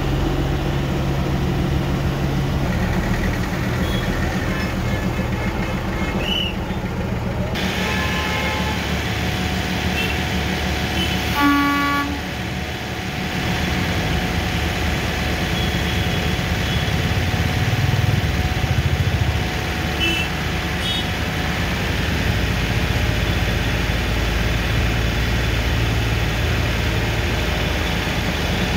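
Engines running in a busy street that the toy-train tracks share with cars and jeeps, a steady hum, broken by a few short horn toots, the loudest about eleven seconds in.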